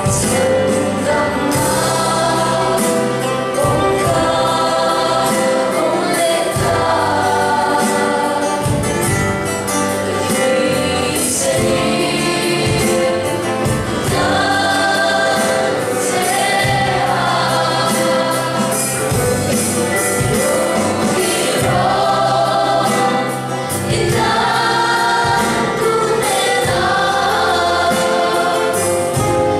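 A large choir of children and teenagers singing a song together.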